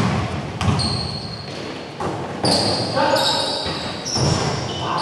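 Basketball game in a gym: a ball bouncing on the court, short high sneaker squeaks and players' voices, echoing in the large hall.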